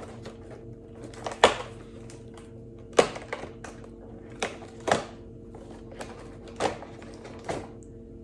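Cardboard advent calendar door being opened and its contents handled: a handful of separate clicks, taps and rustles spaced a second or so apart, over a steady low hum.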